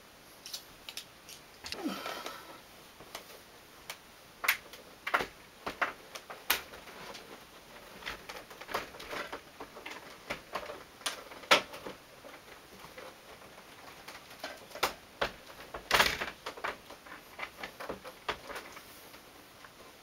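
Irregular clicks, taps and knocks of plastic and metal parts as a window air conditioner's mounting panel is handled and fitted into the window frame, with a short scraping rub about two seconds in. The sharpest knocks come just past the middle and again about three-quarters of the way through.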